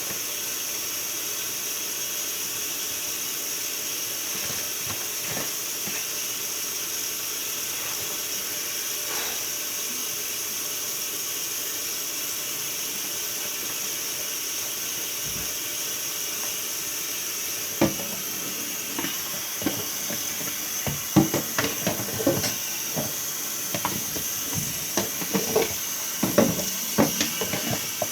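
Water running steadily from a tap into a sink. From about 18 seconds in, a string of irregular knocks and clatters as items are handled in the sink.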